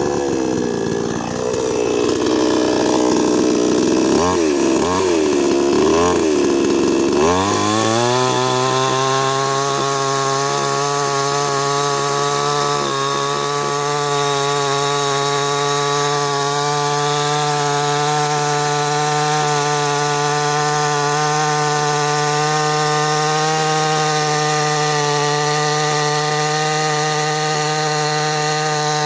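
A 55 cc two-stroke petrol chainsaw starts suddenly and runs unevenly for several seconds, its pitch wavering up and down. About seven seconds in it revs up and holds a steady high-speed note.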